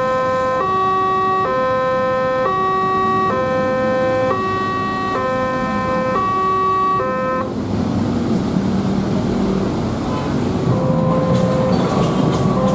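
Loud two-tone electronic warning siren alternating high and low about once a second, which cuts off suddenly about seven seconds in, leaving road traffic noise.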